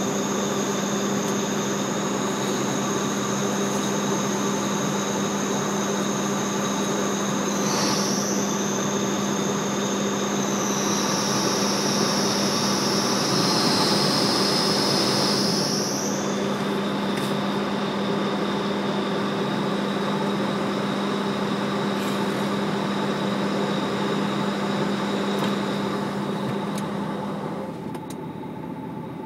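Running machinery and ventilation fans giving a steady mechanical hum: a low drone under several high whining tones. The high whine dips briefly about eight seconds in and glides between about ten and sixteen seconds. The hum drops somewhat near the end.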